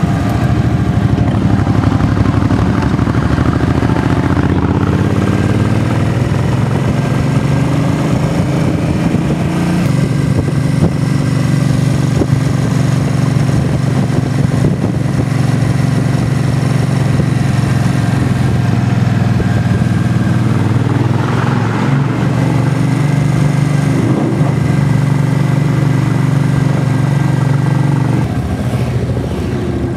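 Motorcycle engine running while riding, over a low rumble. Its pitch climbs over several seconds, holds steady, wavers briefly past the middle, and drops near the end as the bike slows.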